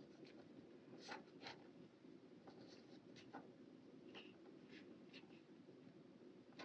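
Faint, scratchy rubbing and light ticks of fingertips pressing a paper sticker down onto a planner page, over a quiet room hiss.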